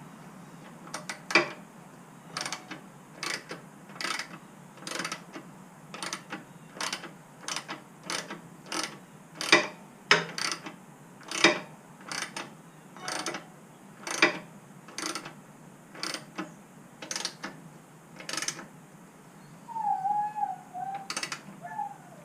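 Hand ratchet clicking in steady strokes, roughly two clicks a second, as a bolt on the motorcycle's rear support bracket is tightened, with a short squeak near the end.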